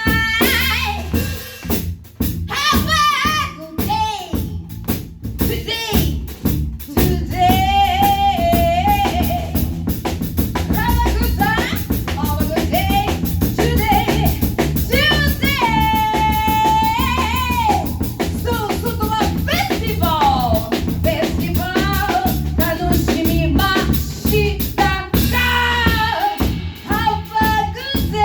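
Live band music: a singing voice over a drum kit with a steady beat and a constant low bass line.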